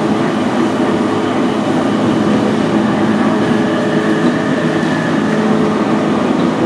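Cabin running noise of a JR East E233 series 0 electric commuter train at speed: a steady rumble of the wheels on the rails with an even, steady hum underneath.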